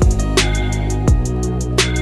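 Background music: a drum beat with regular kick and snare hits and quick hi-hat ticks over a sustained bass line.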